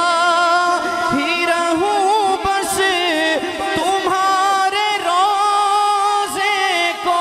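A man singing a naat, an Urdu devotional poem, into a microphone in long, wavering, drawn-out melodic phrases, with a steady lower tone held beneath the voice.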